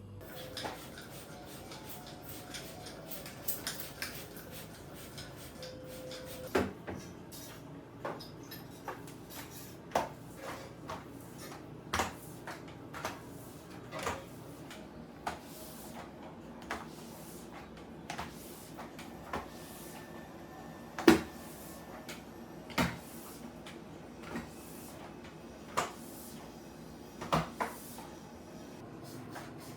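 Household chores: a series of separate knocks and clacks as things are handled, put down and shut, irregularly spaced, with one sharper knock about two-thirds of the way through.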